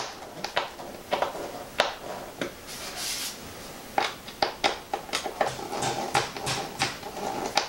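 Hand screwdriver driving the top-wing screws on an RC biplane, with scattered light clicks and taps from the screws and from handling the wing, coming thicker in the second half.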